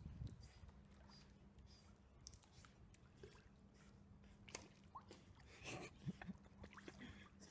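Faint small splashes and drips of water from a German Shepherd puppy paddling in a swimming pool, with a slightly louder slosh a little past halfway and a faint low hum underneath.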